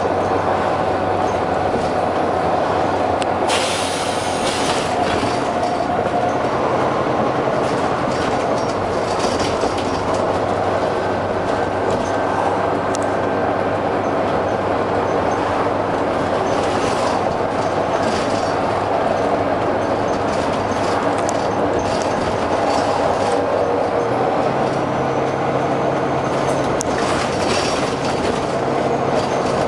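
Volvo B9TL bus's six-cylinder diesel engine running with a steady thrash, with a loud hiss of compressed air about three seconds in that lasts over a second, and several shorter hisses later.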